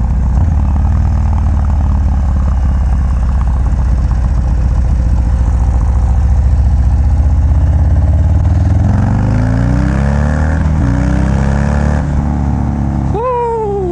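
Loud exhaust note of a Harley-Davidson FXDR's 117 cubic-inch V-twin through a Bassani Road Rage exhaust while riding: a steady low rumble, then the engine note rising as the bike accelerates from about nine seconds in.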